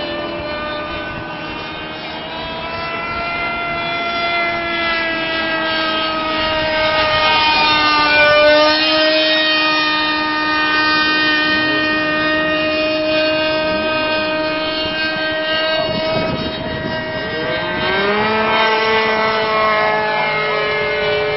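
Radio-controlled model airplane's engine and propeller running steadily in flight, a pitched drone whose tone dips and comes back up about eight seconds in and sweeps up again about seventeen seconds in as the plane flies past.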